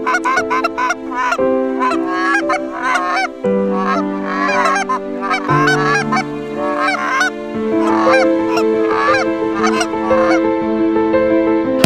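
Canada geese honking over and over as a flock circles overhead, over background music of held chords that change every couple of seconds.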